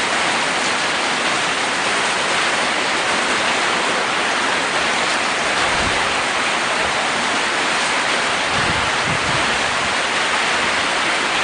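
Steady rain falling on a house roof, an even continuous patter.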